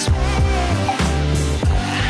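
Background music: an electronic track with a steady drum beat and a deep bass line.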